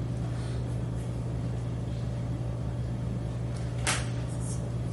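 Steady low hum, with faint strokes of a marker writing on paper and one short, sharp scratch of the marker about four seconds in.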